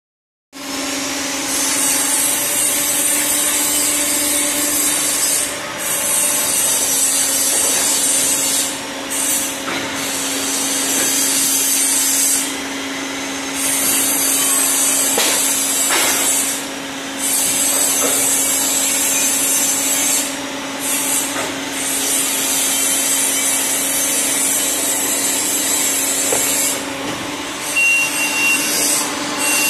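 A hydraulic plastic injection moulding machine running: its pump gives a steady hum under a loud hiss, and the hiss drops out for a moment every few seconds. There are a few faint clicks, and near the end a short high beep repeats.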